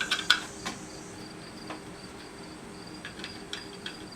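A few light clicks and taps of metal stand parts being handled and fitted during assembly, most of them in the first second. Under them runs a faint high-pitched pulsing chirp.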